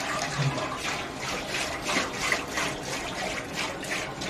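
Liquid pouring and splashing, in uneven sloshes.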